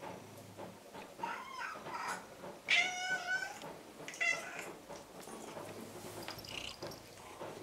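Orange-and-white tabby cat meowing insistently, three meows in a row, the middle one, about three seconds in, the longest and loudest.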